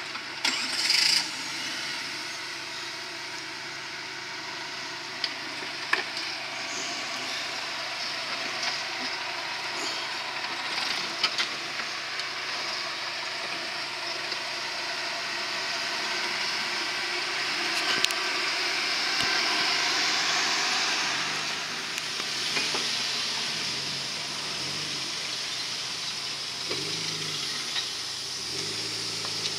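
Suzuki Samurai 4x4 crawling over trail rocks: a steady rushing noise with a few sharp knocks. From about two-thirds of the way in, the engine revs up and down in short repeated pulls as it climbs the ledges.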